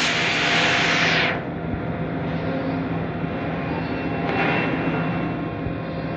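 Woodmaster CNC wood router running: a loud hiss stops quickly about a second in, leaving a lower, steady machine hum with a faint steady tone and a brief swell about four seconds in.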